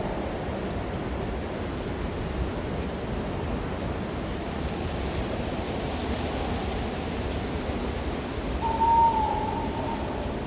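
Steady blowing wind with a single owl hoot, a short clear call that dips slightly in pitch, near the end.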